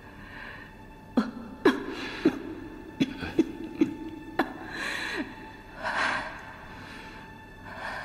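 A sick woman's short coughs, about seven of them, mixed with gasping, laboured breaths, the distress of serious illness.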